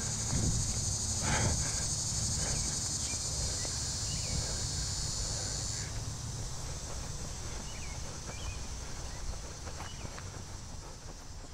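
Steady, high-pitched chorus of insects in a summer meadow, with a few short bird chirps; the insect sound drops to a fainter level about halfway through.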